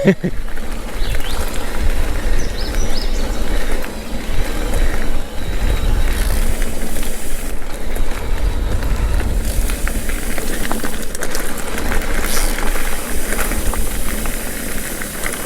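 Mountain bike rolling along a dirt trail: tyre noise on the ground with scattered clicks and rattles from the bike over bumps, under a steady low rumble of wind on the microphone.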